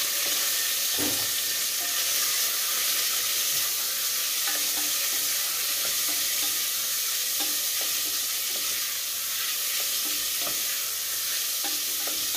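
Diced bacon sizzling as it fries in a stainless steel pot, with a spoon stirring it and knocking against the pot now and then.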